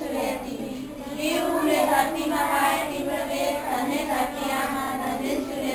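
A group of young children singing together in unison with a woman's voice, in slow held notes: a sung grace before the meal.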